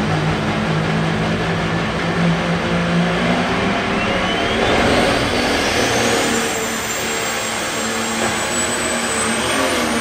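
Green John Deere pulling tractor's diesel engine running hard as it starts a pull with the sled. A high whistle rises in pitch over a few seconds, then holds steady: the turbocharger spooling up.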